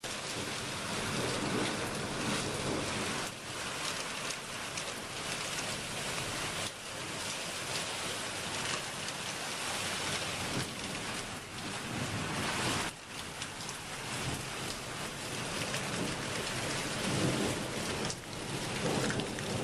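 Steady rain falling on walls and hard surfaces during a night rainstorm. Low rumbles of thunder swell a few times, near the start, midway and near the end.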